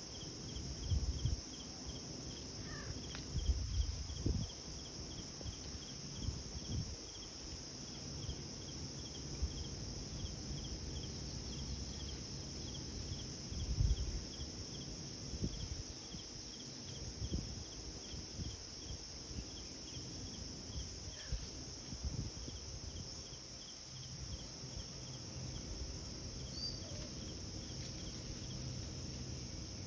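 Insects chirping: a steady high trill with a regular chirp about three times a second that fades out about halfway through. Scattered low thumps and rumbles break in now and then.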